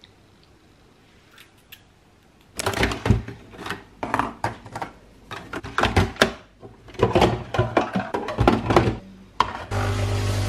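Clicks and clatter as a Tassimo pod coffee machine is handled and loaded: the lid is opened and snapped shut and the mug is set down. Near the end the machine starts brewing, with a steady hum and hiss as it pumps coffee into the mug.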